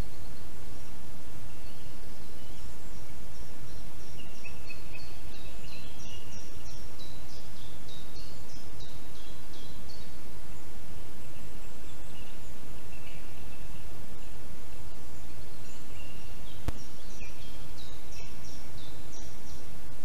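Steady hiss from an outdoor nest-camera microphone, with a small songbird singing runs of short high notes in two spells, pausing midway. A single sharp click sounds a little after the three-quarter mark.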